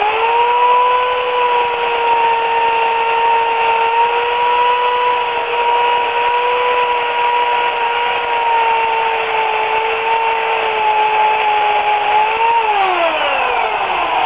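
Remington Limb N Trim 14-inch electric chainsaw's 8-amp motor starting up and running at a steady high hum with chain noise, its pitch sagging slightly later on. Near the end the trigger is released and the motor winds down in a falling whine.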